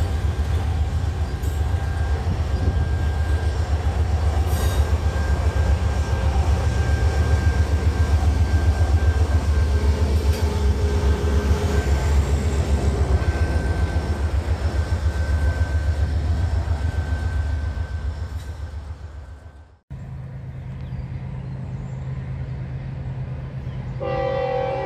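Norfolk Southern freight train passing close by: autorack cars rumbling and clattering over the rails with a faint steady high squeal, and a diesel locomotive in the consist going by, the sound fading as the train moves off. After a sudden cut there is a steady low hum, and a train horn starts sounding near the end.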